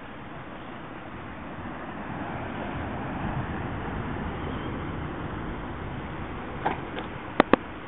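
Steady rush of sea waves washing onto the shore. Near the end come four sharp clicks, the last two loudest and close together.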